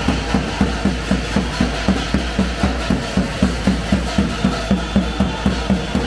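Davul, the large Turkish double-headed bass drum, beaten in a steady rhythm of about four strokes a second.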